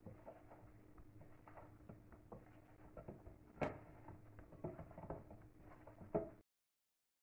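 Hands tossing powder-coated raw potato pieces in a glass bowl: a soft patter of pieces and fingers rubbing and tapping against the glass. There is a sharper click about three and a half seconds in and another just before the sound cuts off abruptly.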